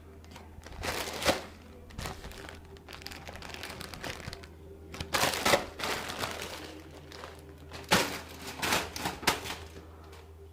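Packaging crinkling and rustling as it is handled, in three bouts with sharp crackles: about a second in, around five seconds in, and near the end.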